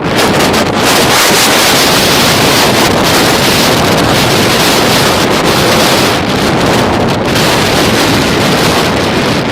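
Bombardier CRJ200's twin rear-mounted General Electric CF34 turbofans at takeoff thrust, with jet blast buffeting the phone's microphone. It comes in abruptly as a very loud, steady rush of noise.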